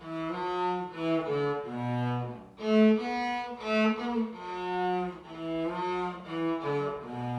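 Solo cello played with the bow: a single melody line of short and held notes from a traditional Argentine tune, moving into a long low note near the end.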